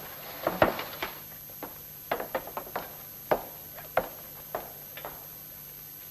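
A series of about a dozen short, sharp knocks and clicks at irregular intervals, the loudest a little over half a second in.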